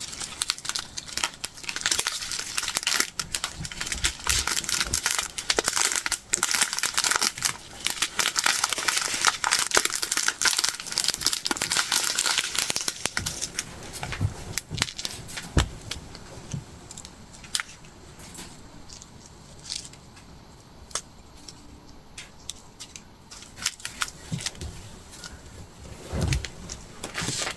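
Small plastic bags of square resin diamond-painting drills crinkling as they are handled, with many small clicks of the drills rattling. The handling is busy for roughly the first half, then thins to scattered clicks.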